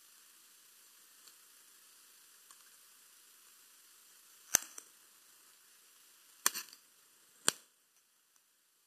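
Three sharp clicks, the first about halfway in, the next two seconds later and the last a second after that, over a faint steady hiss.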